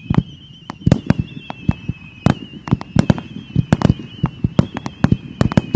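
Fireworks going off in a rapid, irregular string of sharp pops, several a second, over a steady high wavering whistle.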